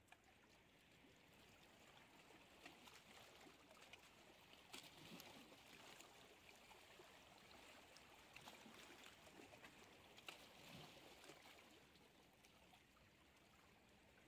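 Near silence: faint water lapping and trickling against shoreline rocks, with a few soft ticks.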